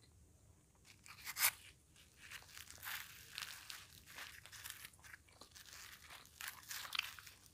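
Crisp deep-fried puri being torn apart by hand: a run of crackles and crunches starting about a second in, loudest at about a second and a half and again near the end.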